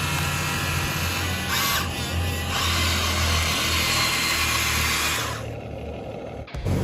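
Whirring of a radio-controlled construction model's small electric motor and gearbox, with a steady low hum under a high whine. The whine eases off about five seconds in, and the sound cuts off abruptly near the end.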